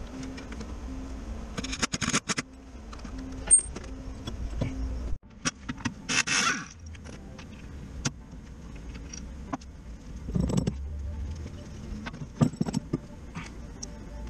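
Metal clinks and knocks from tools and parts being handled at a car's front wheel hub while the driveshaft is freed from it, with a short hiss-like noise about six seconds in and a few louder knocks later on.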